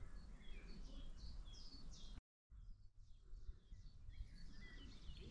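Songbirds chirping faintly in a series of short, high notes over a low, steady rumble. The sound cuts out completely for a moment a little over two seconds in.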